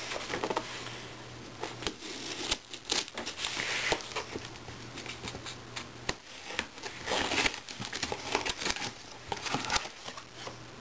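Packing tape on a cardboard shipping box being slit with a pocket knife and torn, with the cardboard rustling and knocking as the box is handled. Irregular rasping and scraping, in several louder stretches.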